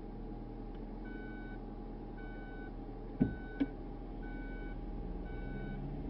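An electronic beeper inside a car's cabin sounds a steady run of short, evenly spaced beeps on one pitch, about one a second. A single thump and a click come about halfway through.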